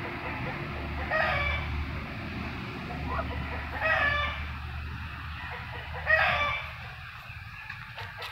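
Domestic fowl calling: three short, harsh cries about two to three seconds apart, over a low steady rumble.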